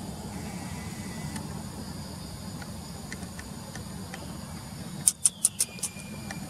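Steady low hum with a faint, even high insect drone. About five seconds in comes a quick run of five sharp, high clicks, the loudest sound here, followed by a short falling tone.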